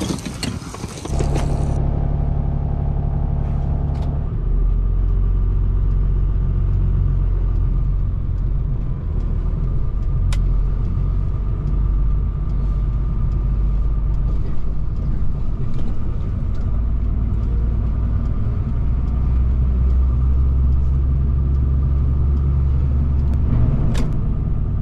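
Heavy truck engine heard from inside the cab while driving, a loud, steady low hum whose pitch drops about four seconds in. It opens with about a second of roadside traffic noise, and a few sharp clicks come through over the drone.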